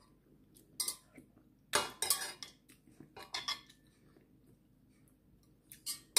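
A metal spoon and metal chopsticks clinking and scraping against a stainless steel pot in several separate short bursts, the loudest about two seconds in.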